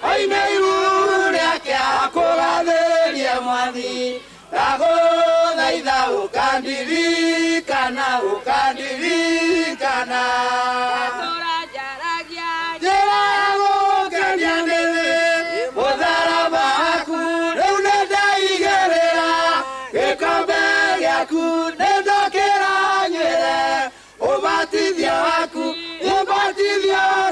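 A mixed choir of men and women singing a gospel song in Kikuyu, with the voices moving together throughout.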